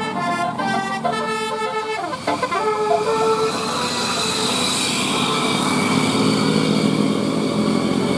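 Bus 'telolet' multi-tone musical air horn playing a quick tune of stepped notes, with one sliding note, for about the first three seconds, then steady vehicle noise.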